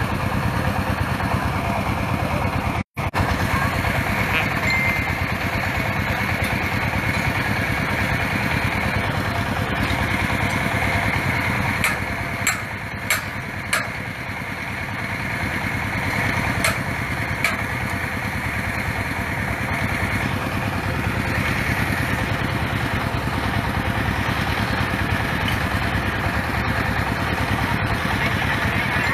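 Small stationary engine powering a water-well drilling rig, running steadily. It cuts out completely for an instant about three seconds in. Several sharp knocks come in the middle, around twelve to eighteen seconds in.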